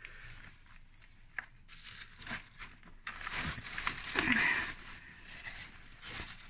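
Cucumber plant leaves and vines rustling and crinkling as a hand pushes in among them, with scattered small snaps and crackles, loudest around the middle.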